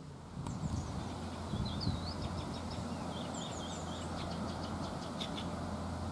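Songbirds chirping and trilling in short high phrases over a steady low drone, the engine of a cargo barge passing on the river.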